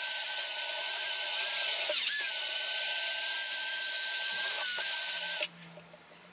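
Power drill spinning a polishing pad against the steel axe head: a steady high motor whine over a loud hiss of rubbing. It dips briefly about two seconds in, then stops suddenly near the end.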